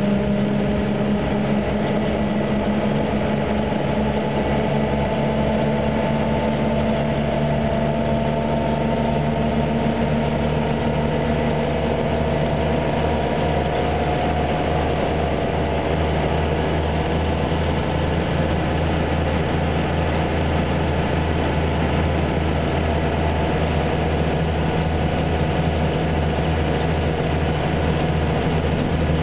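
DAF SB220 single-deck bus heard from inside the passenger saloon while cruising: its engine and driveline give a steady low drone with a whine that rises slowly in pitch over the first half, over road noise.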